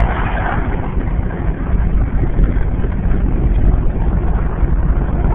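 Steady low rumbling noise with a hiss over it, a little stronger in the first second.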